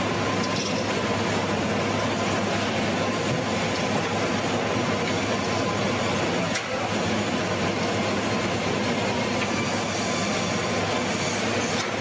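Sawmill machinery running: a steady, dense mechanical noise with a low hum underneath, dipping briefly about six and a half seconds in.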